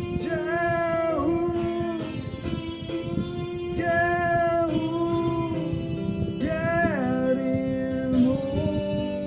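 Music: a singer holding long vowel notes without words over guitar accompaniment, in three phrases beginning near the start, about four seconds in and about six and a half seconds in, each sliding down in pitch.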